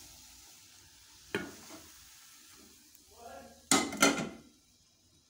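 Aluminium frying pan knocking against a ceramic plate as an egg paratha is slid out: one light knock about a second and a half in, then two loud clatters with a short ring about four seconds in. A faint frying hiss sits underneath.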